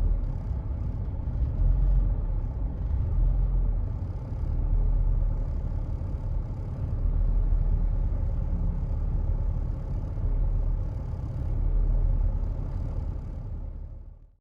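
Mitsubishi Nativa engine idling, its low rumble swelling and fading unevenly every few seconds: the rough idle the owner sets out to cure.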